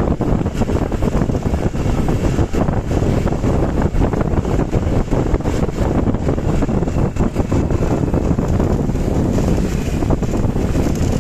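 Wind buffeting the microphone over steady vehicle noise, heaviest in the low end, with no horn tune standing out.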